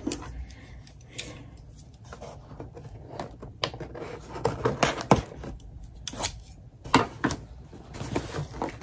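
A cardboard subscription box being opened and handled: irregular clicks, scrapes and rustling, with a few sharper knocks about five and seven seconds in.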